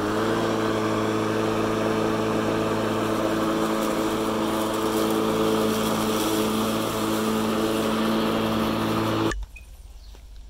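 Ferrex cordless lawnmower's electric motor and blade running at full speed with a steady hum, cutting off suddenly about nine seconds in.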